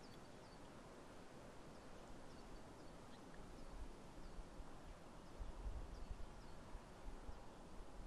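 Wind rumbling on the microphone in low gusts, stronger in the second half, over a steady faint hiss of open-air ambience. Birds chirp faintly and sporadically in short high notes.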